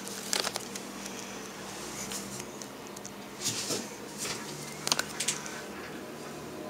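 Steady low hum inside a moving passenger vehicle, with a few short clicks and brief rustling hisses about half a second in and again around the middle.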